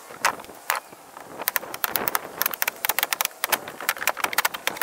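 Hammer knocking on old shed boards: a rapid, irregular run of sharp knocks.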